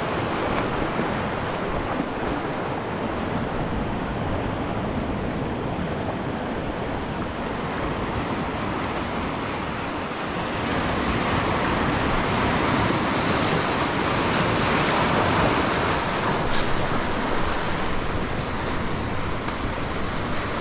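Surf breaking and washing in over rocks at the shoreline, a steady rushing of water that swells louder about halfway through.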